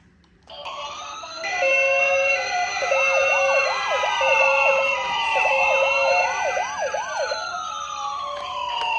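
Several toy ambulance sirens sounding over one another: slow rising-and-falling wails, a fast warbling yelp in two stretches, and an alternating two-tone hi-lo siren. They start about half a second in and get louder a second later.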